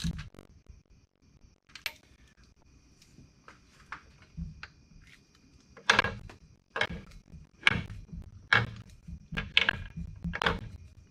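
Ratchet wrench working the nuts on a VW Type 1 engine case. A few scattered clicks come first, then from about halfway a regular clicking stroke about once a second.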